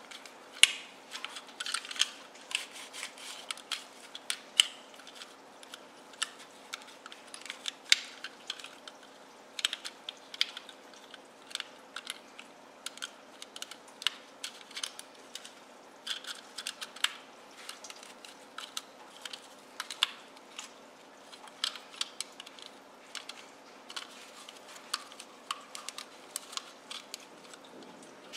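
A cloth rubbing over a small hard plastic toy as it is wiped clean, with irregular small clicks and scrapes of plastic handled in the fingers, several a second.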